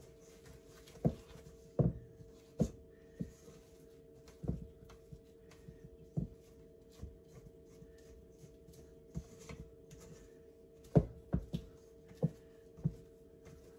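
Silicone spatula knocking and scraping against a stainless steel mixing bowl while thick brownie batter is folded: irregular clunks, more than a dozen, some much louder than others. A faint steady hum runs underneath.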